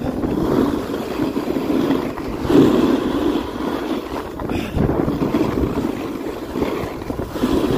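Wind rushing over the microphone during a fast ski descent, rising and falling in gusts, mixed with the hiss and scrape of skis on snow.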